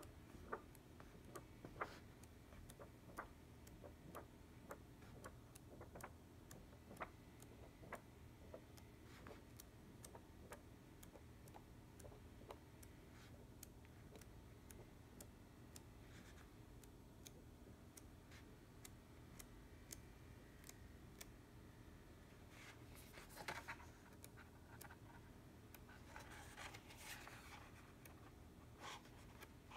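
Quiet paper handling of a paperback book as its pages are turned, with a brief rustle of a turning page about two-thirds of the way in and another near the end. Faint scattered ticks run underneath.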